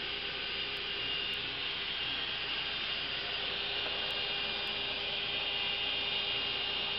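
Steady hiss with a low steady hum from a running HHO (hydroxy) wet cell generator, its electrolyte fizzing as it makes gas.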